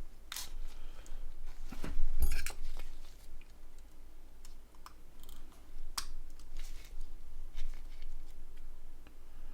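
Small clicks, taps and scrapes of a mobile phone's plastic and metal parts being handled and fitted during reassembly, with a louder knock about two seconds in and a sharp click at about six seconds.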